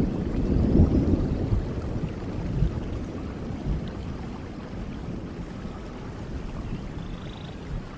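A steady low rushing rumble from a background ambience bed, loudest in the first second and then easing to a softer, even level.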